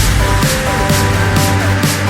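Electronic background music with a steady beat of about two strikes a second over held tones.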